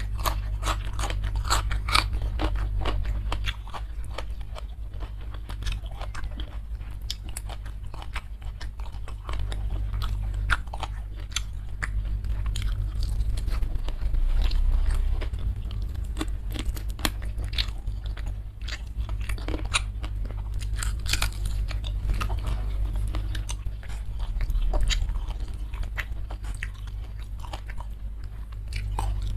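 Close-miked chewing and crunching of food, a dense run of irregular crisp crunches and wet mouth clicks. It starts with bites into a raw green bean and goes on with chicken wing and rice eaten by hand. A steady low hum sits underneath.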